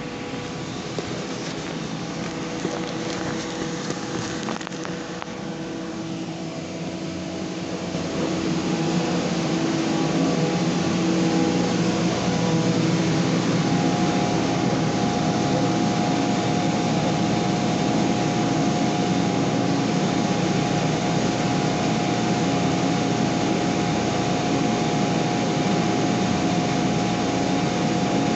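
Stationary belt sander with its dust extraction running, a steady motor drone with a few constant tones that grows louder about eight seconds in and then holds steady.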